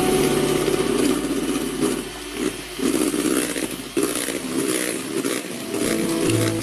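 Miyako electric hand mixer running steadily, its twin beaters whipping egg whites and sugar into meringue in a plastic bowl, with brief dips in the sound about two and four seconds in.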